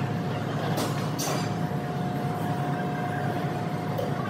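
A train's steady low rumble with a constant hum.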